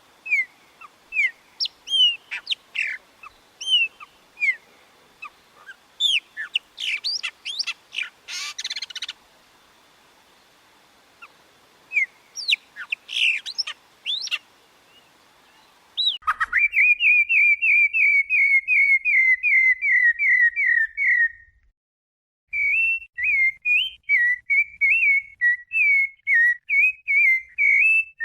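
Songbirds singing: scattered short chirps and whistled notes over a faint hiss, then, about halfway through, a different bird's loud, rapid, even run of whistled notes, a short pause, and a more varied whistled phrase.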